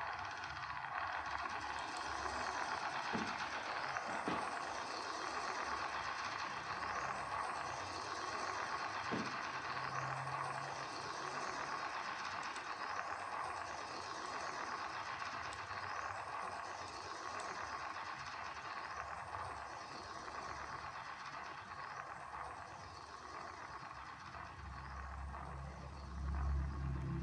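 Steady dense rushing noise from an electronic sound patch on a computer, with faint sweeps repeating about every second and a half. A low rumble swells near the end.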